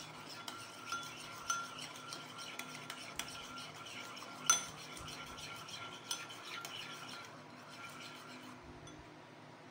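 Metal spoon stirring a thick yogurt, mayonnaise and ketchup sauce in a ceramic bowl: irregular soft scrapes and clinks of the spoon against the bowl, with one sharper clink about four and a half seconds in. The stirring thins out near the end.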